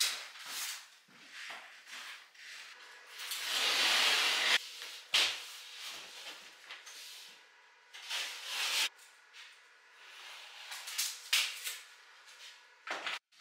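Scraping and rubbing from plasterboard work: a filling knife drawn over plasterboard joints and sheets of plasterboard being handled. It comes in short, irregular strokes, with one longer, louder scrape about three and a half seconds in.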